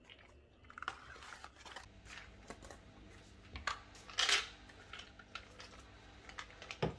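Medicine boxes and supplement bottles being handled, with irregular rustling and small clicks. There is a louder rattle about four seconds in and a sharp knock near the end.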